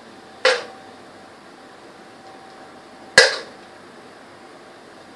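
A metal spoon knocked twice against metal cookware, about three seconds apart, each knock sharp with a short ring, as mince is scooped from a cooking pan onto a pizza base in a baking tray.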